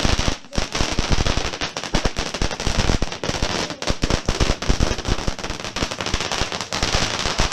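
Ground fountain firework spraying sparks, with a dense, fast run of crackling pops that does not let up.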